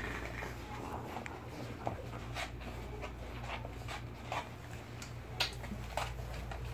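Eight-week-old bulldog puppies licking, snuffling and mouthing at a person's face, with scattered short wet clicks and smacks, the sharpest a little past five seconds in.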